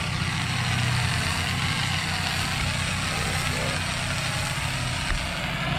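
Pressure washer engine running steadily, with the constant hiss of water spraying from the wand as the grass is wetted down.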